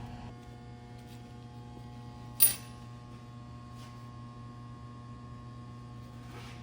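A single sharp metallic clink about two and a half seconds in, ringing briefly, as metal pump parts or a tool knock together during reassembly. A steady electrical hum runs underneath.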